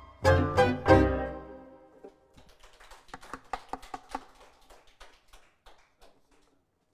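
A Hungarian gypsy band of violins, cimbalom, double bass and clarinet ends a tune with three short, loud closing chords that ring out for about a second. Faint, scattered handclaps follow for a few seconds.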